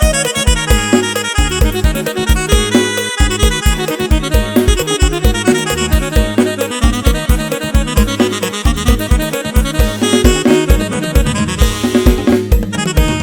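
Electone (electronic organ keyboard) played live: a fast, steady dance beat with a heavy bass drum under a busy melody and chords.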